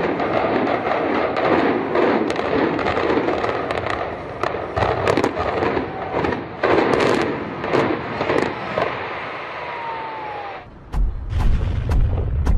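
Structure demolition: a rapid string of sharp cracks and bangs over loud crashing noise. A falling whistle sounds near the end. After an abrupt cut, a heavy low rumble follows with wind on the microphone.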